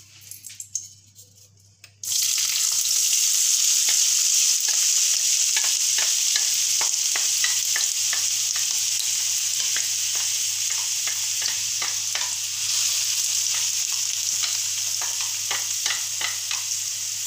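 Chopped onion hitting hot olive oil in a frying pan: a loud sizzle starts suddenly about two seconds in and runs on steadily as the onion fries. Light taps through it as the onion is tipped from a bowl into the pan.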